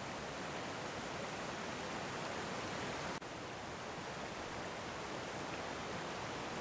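Creek water rushing steadily over rocks, an even hiss with a momentary dropout about halfway through.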